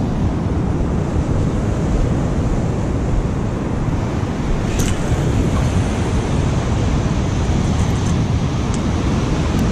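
Wind buffeting the microphone over the steady noise of surf breaking on the beach.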